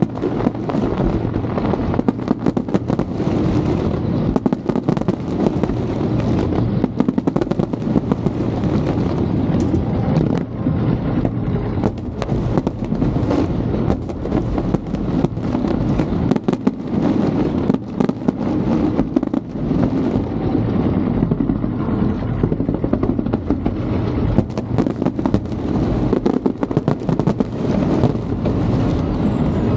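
Aerial fireworks display going off in a continuous barrage: many sharp booms and crackles follow one another closely throughout, over a steady low rumble.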